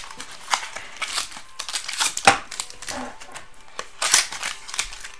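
A baseball-card pack wrapper being torn open and crumpled in the hands, irregular crinkling and crackling throughout.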